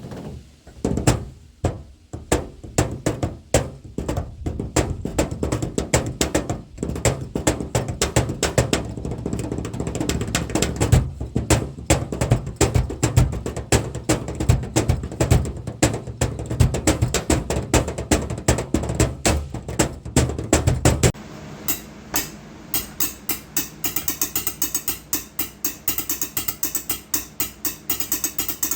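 Improvised drumming on objects: fast, dense taps and knocks with a deep, hollow body. About two-thirds of the way through, the sound switches to lighter, sharper clicking in a quicker, more even rhythm, as the drumming moves to a different surface.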